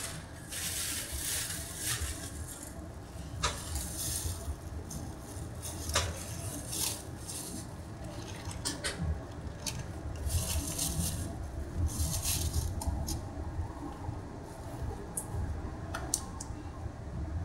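Inside a Puyuma Express tilting electric train: a steady low hum with scattered sharp clicks and clinks, and short bursts of hiss about half a second, four seconds, ten and twelve seconds in.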